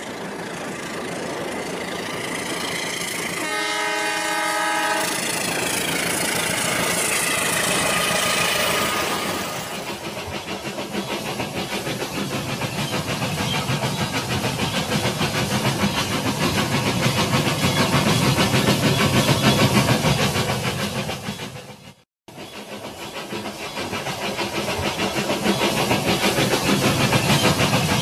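Toy electric train running on plastic track, its small motor and wheels making a fast rhythmic clatter that swells as the train draws near and fades as it passes. A short electronic horn sounds about four seconds in.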